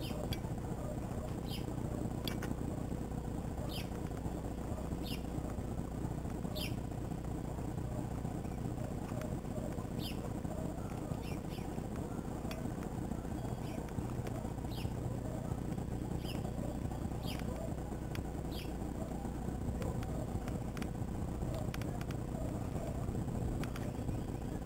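A bird calling over and over with single short, high chirps about a second or so apart, over a steady low background rumble; the chirps stop a few seconds before the end.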